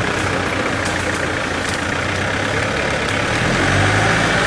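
Engine of an off-road buggy running at low revs as it crawls through deep mud, getting a little louder about three and a half seconds in.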